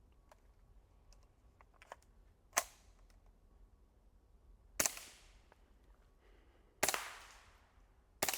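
Four suppressed shots from a .22 LR HK G36 rifle fitted with a JK Armament suppressor, about two seconds apart. Each shot is a sharp crack followed by a short decaying ring, and the last one comes near the end.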